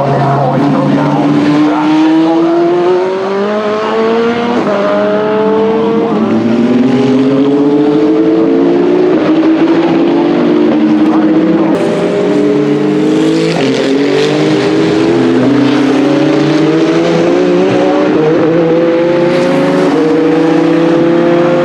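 Several hypercar-class endurance race car engines accelerating hard, overlapping one another. Each note climbs in pitch and drops back at every upshift, again and again.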